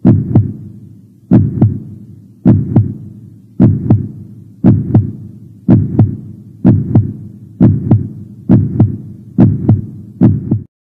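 Heartbeat sound effect: deep paired lub-dub thumps about once a second, speeding up slightly toward the end and then cutting off suddenly.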